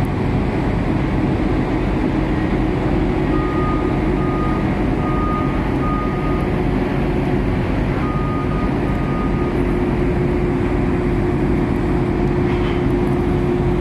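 Crawler crane's diesel engine running steadily under load as it lifts a boom section, with a steady low hum. A high-pitched warning beeper sounds in short beeps, a run of about four starting about three seconds in and two more about eight seconds in.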